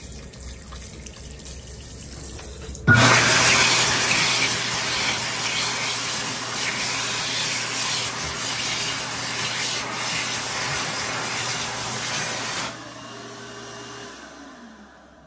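World Dryer SMARTdri+ hand dryer switching on about three seconds in as hands go under it. It blows a loud, even rush of air over a steady motor hum for about ten seconds, then cuts off and its motor winds down.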